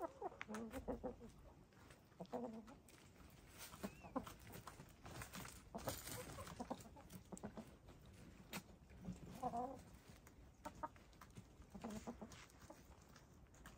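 Dust-bathing hens making a few short, low, quiet clucks, with scattered scratchy clicks and rustles of dirt being kicked and flung.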